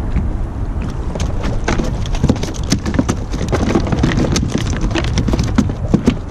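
A freshly landed bluefish flopping and slapping against a kayak: quick, irregular knocks and slaps that grow thick after the first second or so, over a steady low rumble of wind and water.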